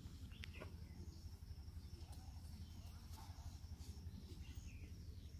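Faint outdoor ambience: a steady low rumble under a faint high insect drone, with a few faint distant bird chirps.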